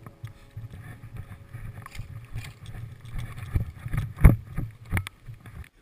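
Wind and handling noise rumbling on a body-worn camera's microphone while moving through brush, with a few sharp knocks between about three and a half and five seconds in, the loudest just after four seconds. It cuts off suddenly just before the end.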